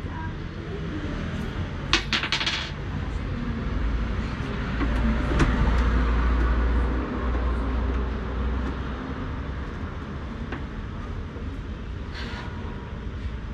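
Light clicks and rattles as the roller shutter's top box is handled, a quick cluster about two seconds in and another near the end, over a low rumble that swells and fades in the middle.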